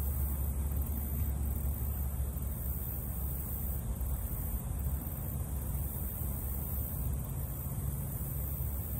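Steady outdoor background noise: an even low rumble with a thin high hiss above it, unchanging throughout.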